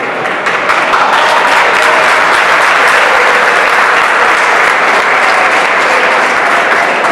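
Crowd applauding, swelling about a second in, holding steady and easing off near the end.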